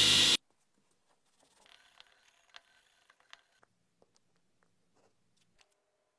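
A power tool cutting into a metal casting, loud and dense with a steady whine, stopping abruptly about half a second in. Then near silence with a few faint, light clicks.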